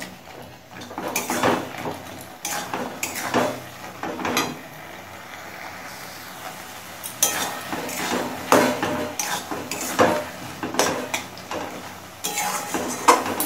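A metal spatula scrapes and clinks against a metal kadai, stirring a thick chutney in irregular strokes, with a lull midway.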